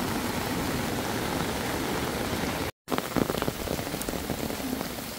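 Steady heavy rain mixed with the rush of a flooded river. About two and a half seconds in, the sound cuts out for a moment, then rain patters close by with sharp drop ticks on the umbrella overhead.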